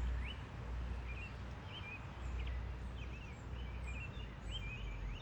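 Small birds chirping now and then, short high chirps scattered throughout, over a steady low rumble of outdoor background noise.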